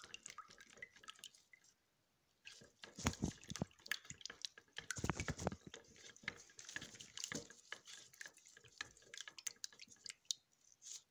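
A utensil stirring a soap-making liquid in a plastic container, to be stirred until it turns clear: irregular clicks and taps of the stirrer against the container and liquid sloshing and dripping, with the loudest knocks about three and five seconds in.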